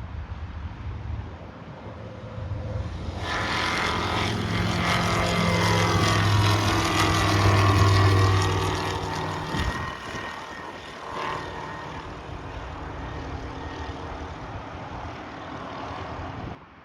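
Sling 2 light aircraft's Rotax 912 engine and propeller growing louder as it passes close by, its pitch dropping as it goes past, then fading. The sound cuts off suddenly near the end.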